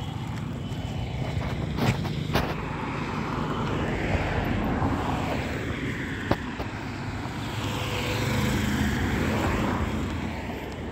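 Engine noise of a passing motor, a steady hum that swells to its loudest about eight seconds in and then eases off, with a few sharp clicks.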